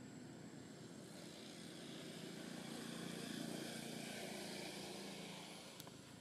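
Distant aircraft passing overhead: a low engine drone that swells over a couple of seconds and then fades away.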